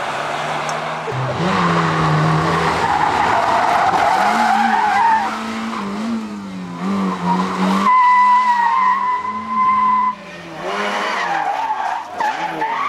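Racing car engine revving hard, its pitch wavering and shifting as the car is driven. A sustained high-pitched tyre squeal about eight seconds in lasts roughly two seconds. Near the end the engine pitch sweeps up and down.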